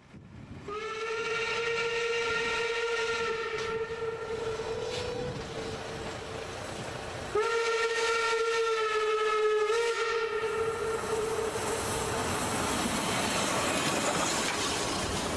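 Harz narrow-gauge steam locomotive sounding its steam whistle in two long blasts, each about five seconds, the second rising slightly in pitch just before it ends. The hiss and running noise of the locomotive then grow louder as it passes close by near the end.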